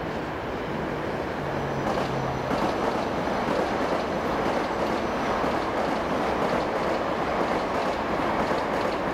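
Express passenger train behind an EP2K electric locomotive passing close by. The rumble of steel wheels on the rails grows louder about two seconds in, then holds steady, with scattered clicks from the wheels over the rail joints.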